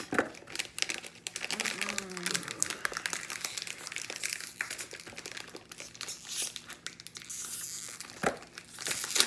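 Hello Panda biscuit box's inner snack wrapper crinkling and crackling in the hands as it is pulled open, in a rapid, continuous run of crackles.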